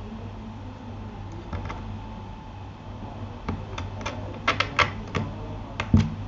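Keychron K8 mechanical keyboard keys being pressed: scattered muted key clicks, a few at first and then a quicker run of a dozen or so in the second half.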